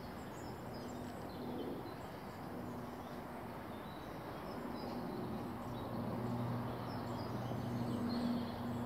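Quiet outdoor ambience: faint distant bird calls over a low steady hum.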